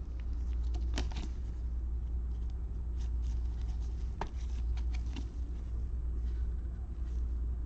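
Steady low electrical hum, with a few faint clicks and rustles of trading cards being slid and handled.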